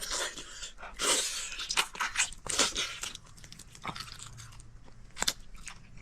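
Close-up chewing and biting of braised pig's trotter: irregular wet crunches and mouth noises, loudest about one and two and a half seconds in.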